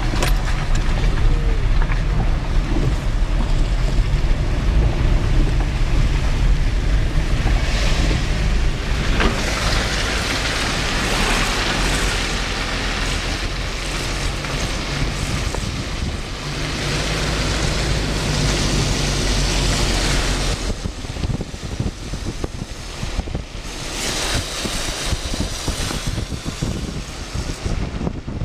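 Wind buffeting the microphone from an open car window over the low, steady rumble of the car driving on a wet road. About twenty seconds in the rumble drops away, leaving gusty wind noise.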